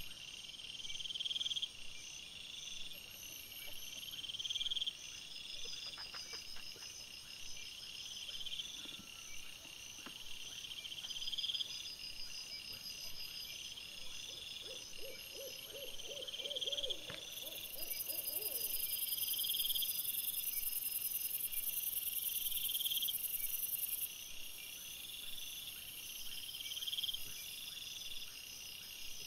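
Night insect chorus of crickets: high chirps repeating about every second and a half over a steady pulsing trill, with a shrill high buzz joining in from a little past halfway for several seconds. A brief run of rapid low pulsed calls comes about halfway through.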